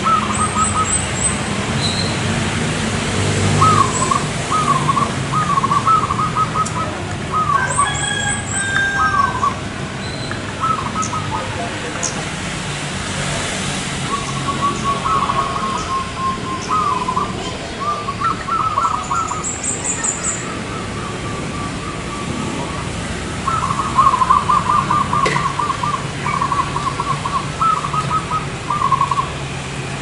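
Zebra doves (perkutut) cooing: bursts of quick, evenly repeated notes in rhythmic phrases, with some phrases overlapping. There are a few high chirps from other small birds and a low background rumble.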